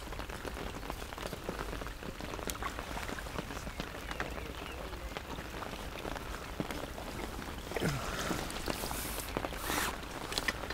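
Steady rain falling on a fishing umbrella and the lake surface, a dense haze of small drop ticks. A couple of brief louder rustles come near the end.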